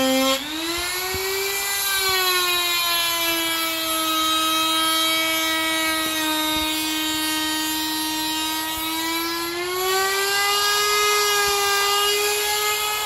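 Electric die grinder whining at high speed, its homemade hollowed-burr eye tool pressed into wood to cut a round eye. The pitch sags under the cutting load, dipping sharply right at the start, and climbs back up about ten seconds in as the pressure eases.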